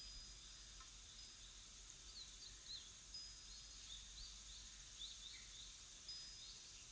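Faint nature ambience of small birds chirping: a run of quick, high chirps from about two seconds in, with a few thin held whistles, over a steady high hiss.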